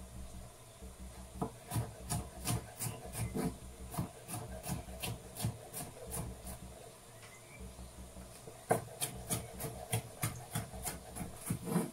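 Knife cutting bell pepper on a cutting board: quick, even strokes about four a second, in two runs with a short pause in the middle.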